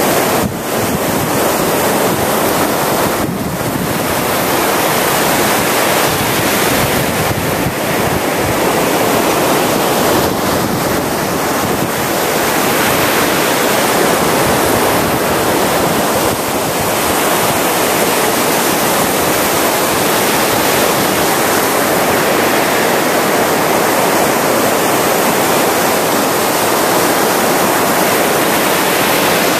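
Gulf of Mexico surf breaking and washing up a sandy beach: a loud, steady, dense rush of waves that swells and eases slightly.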